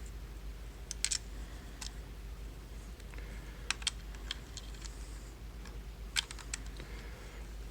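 Scattered sharp plastic clicks and taps as an Xbox One controller's parts are handled and pressed back together, in small clusters a second or two apart.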